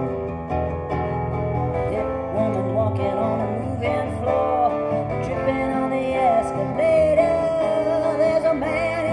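Acoustic guitar strummed in a country-folk rhythm, with a harmonica playing a wavering, bending melody over it in an instrumental break; one note is held for about a second near the end.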